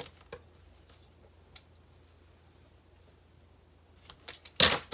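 A few faint clicks of handling, then near the end a single loud snip of scissors cutting through double-sided tape.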